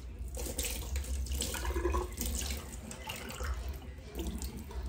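Water running from a kitchen tap and splashing irregularly into a sink.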